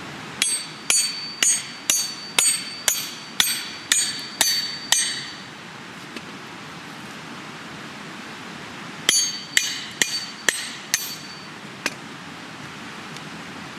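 Hand tools striking to split a wild cherry log into billets, each blow with a sharp metallic ring. About ten blows come at roughly two a second, then after a pause five more, and one lone knock near the end.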